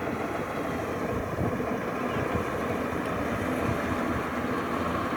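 Kubota DC-105X combine harvester running steadily with a heavy low rumble of engine and threshing machinery.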